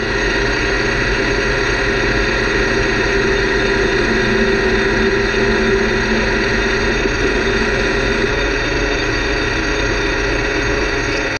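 Metal lathe running steadily under power, its drive and gear train giving a constant multi-toned whine while turning down a gear blank; it cuts off suddenly at the end.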